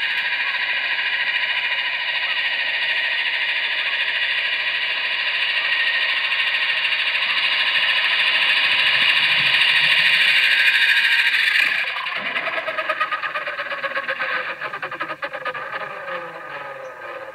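Blade Nano S3 micro RC helicopter's electric rotor motors whining steadily as it hovers close overhead. About twelve seconds in the whine drops suddenly, then falls in pitch and fades as the rotors slow.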